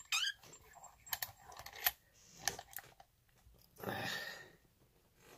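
Light scattered clicks and knocks of a metal lock cylinder being handled and taken out of a bench vise, with a brief scraping rustle about four seconds in.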